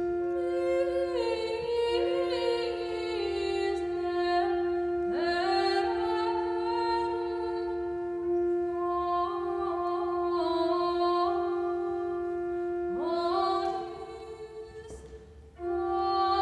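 Voices singing sacred chant over a steady held drone note, with the melody swooping up into new phrases about five and thirteen seconds in. The sound drops away briefly shortly before the end, then the singing and drone return.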